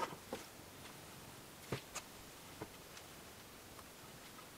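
A handful of faint, light knocks and taps as boards are handled and laid into a panel clamp, mostly in the first three seconds, over quiet room tone.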